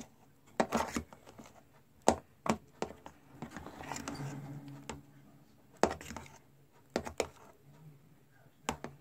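A fork clicking and scraping in a bowl, stirring laundry detergent into glue-and-shaving-cream slime: irregular sharp clicks with a soft rustling scrape about four seconds in.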